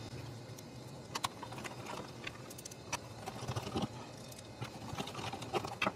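Faint, scattered clicks and taps of a hand Torx screwdriver and small metal screws against a hard plastic console panel and module housing as the module is screwed into place.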